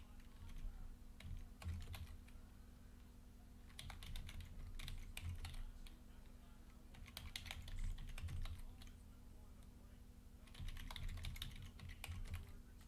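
Typing on a computer keyboard: several short bursts of rapid key clicks a few seconds apart, over a faint steady electrical hum.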